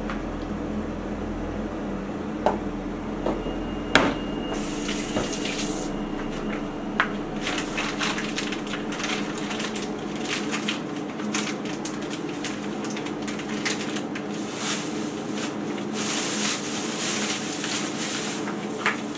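Water running from a kitchen tap into a sink as dishes are washed by hand, with dishes knocking and clinking against each other and the sink. A few sharp knocks come in the first few seconds, and the water runs in short spells at first, then mostly steadily.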